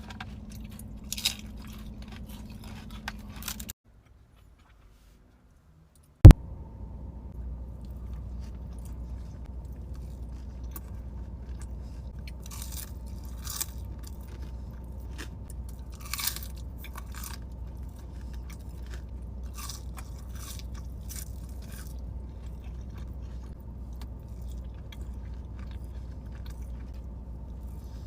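Close-miked eating: chewing, biting and crunching on food. About four seconds in, the sound drops out for a couple of seconds and then comes back with a single sharp click. After that the chewing goes on over a steady low hum.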